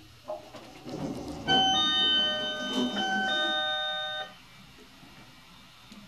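Mitsubishi ElePack elevator's door-open chime: an electronic phrase of several held notes that starts about a second and a half in and plays twice before stopping, as the car arrives and its doors open, with a low rumble of the car and doors just before it.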